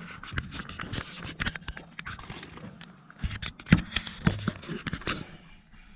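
Handling noise from a camera pushed against and through a stone window opening with bars: irregular knocks, clicks and scrapes, the loudest about two-thirds of the way in.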